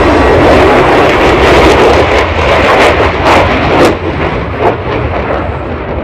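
Low-flying airplane passing close by, a loud, steady rush of engine noise that eases after about four seconds.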